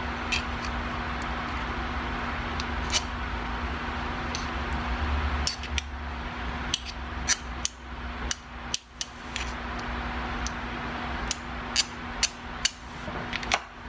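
Table knife tapping and scraping as butter is cut and scooped from its wrapper: small sharp ticks, a few early and more often in the second half, over a steady low background hum.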